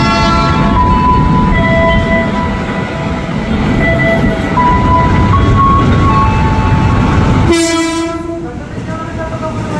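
JR 205 series electric commuter train pulling into the station, with a rumble and several steady whining tones that shift in pitch. About seven and a half seconds in, the train gives one horn blast lasting about a second.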